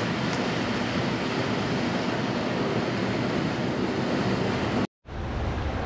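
Steady rushing of water and wind around a Leopard 45 sailing catamaran surfing downwind at about 14 knots. It cuts off abruptly near the end.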